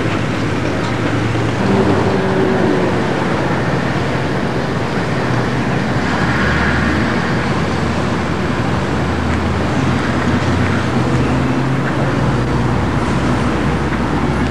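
Steady rumble of motor traffic: a continuous low engine hum under an even wash of road noise, with no distinct events.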